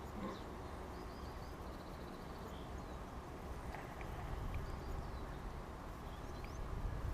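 Outdoor ambience: faint, scattered small-bird chirps over a steady low rumble of wind on the microphone.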